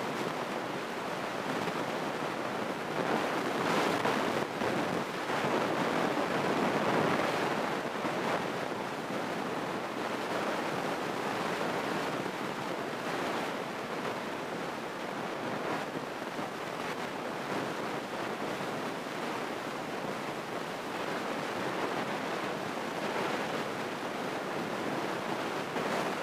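Steady rushing cabin noise of a single-engine Grumman light plane descending on approach with full flaps: airflow and engine blending into an even hiss with no distinct engine tone, swelling slightly a few seconds in.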